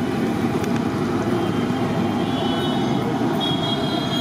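Battered potato bajji sizzling as they deep-fry in a large kadai of hot oil, over a steady low rumble of street noise.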